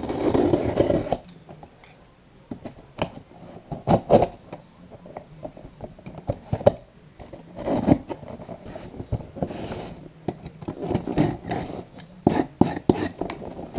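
A utility knife blade slicing and scraping along packing tape on a cardboard box, with the tape tearing and peeling off the cardboard and the box being shifted between cuts. Irregular scratchy strokes with a few sharper clicks.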